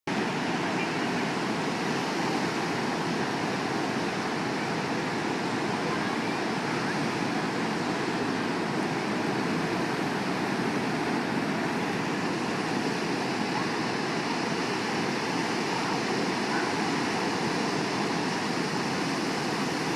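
Ocean surf at a beach: a steady, unbroken wash of breaking waves.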